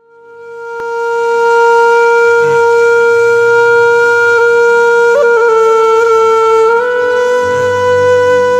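Nadaswaram, a South Indian double-reed wind instrument, holding one long note that swells in, wavers about five seconds in, then rises slightly near seven seconds.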